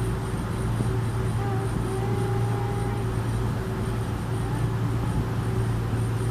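Ferry's engine running with a steady low drone and a wash of noise.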